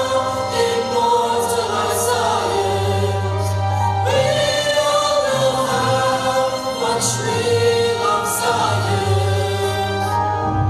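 Voices singing together over an instrumental backing track, with a steady bass under the melody; the singing drops out just before the end and the music carries on.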